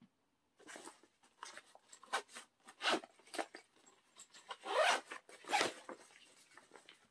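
Zipper on a Vans backpack being pulled open in a series of short, rasping pulls, the longest and loudest about three and five seconds in.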